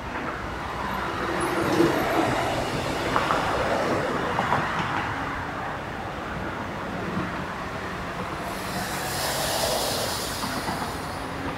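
Electric train running at a station platform: a steady rumble of wheels on rail that swells over the first two seconds, with a few clicks, and a brighter hiss for a couple of seconds near the end.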